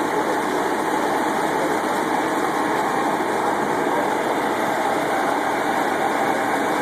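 Concrete pump truck's diesel engine running steadily while pumping concrete for a slab pour.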